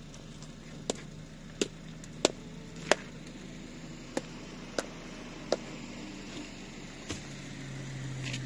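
A series of about eight sharp knocks, one every two-thirds of a second or so, with a longer gap before the last one, over a steady low hum.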